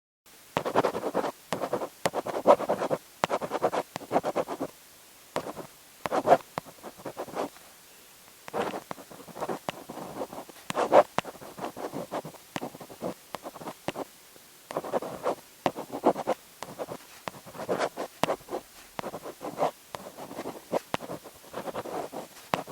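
Writing by hand on paper: the tip scratches across the sheet in quick, irregular strokes, grouped in short bursts with brief pauses between them. It starts about half a second in.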